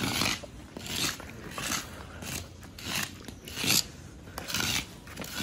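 Metal rod scraping and raking through charred ash, embers and broken clay pot shards, in repeated rasping strokes a little more than one a second.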